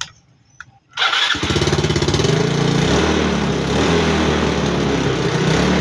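Yamaha Mio Sporty scooter's single-cylinder four-stroke engine starting about a second in, rising briefly in revs, then running steadily. It now starts readily after its dust-clogged carburetor, with a sticking piston diaphragm, has been cleaned.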